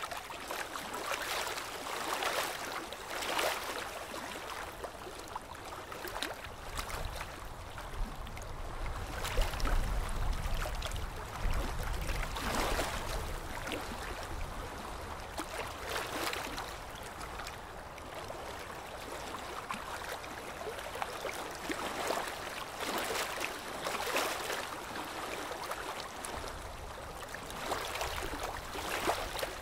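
Sea water splashing and sloshing against a boat's hull in surges every couple of seconds. A low rumble joins in for several seconds near the middle and again near the end.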